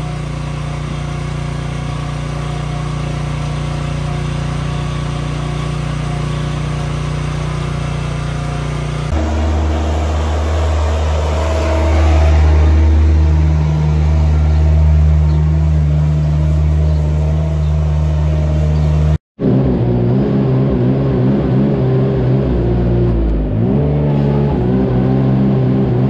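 Farm machinery running steadily in three separate clips. First a calf milk-feeding cart hums; from about 9 seconds in, a compact loader's engine runs louder while it carries straw in its bale grab; from about 19 seconds in, after a brief dropout, a ride-on cubicle bedding spreader's engine runs with a wavering pitch.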